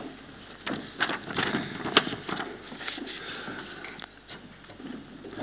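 Sheets of paper rustling at a lectern as pages are handled and turned, with a few light clicks and knocks, the sharpest about two seconds in.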